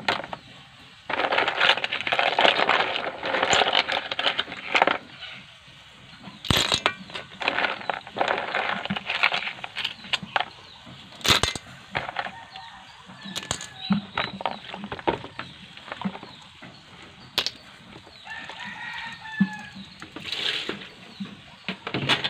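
Chickens clucking and a rooster crowing, with scattered sharp clicks and knocks throughout.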